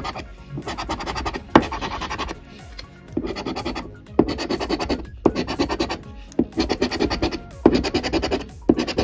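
A coin scratching the latex coating off a scratch-off lottery ticket in quick back-and-forth strokes, in a string of short bouts with brief pauses between them.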